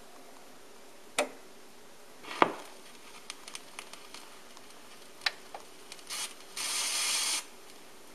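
Onkyo PL-25F linear-tracking turntable being operated at its front-panel buttons: a few sharp clicks and light ticks, the loudest about two and a half seconds in. A bit over six seconds in comes a steady hissing whir lasting just under a second.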